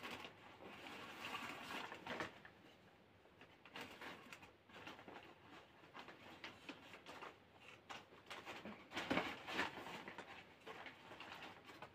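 Faint, irregular clicks and rustling, a little louder about nine seconds in.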